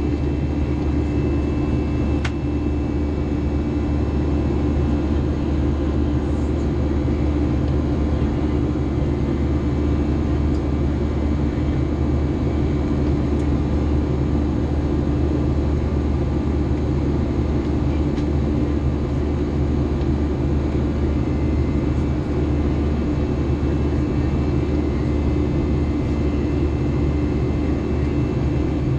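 Cabin noise of an Airbus A321 airliner climbing out after takeoff: a steady, unchanging low rumble of jet engines and airflow with a constant hum and faint steady whine over it.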